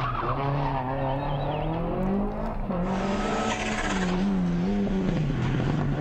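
Rally car engines revving hard. The engine pitch climbs and drops again and again with throttle and gear changes, over a haze of tyre noise.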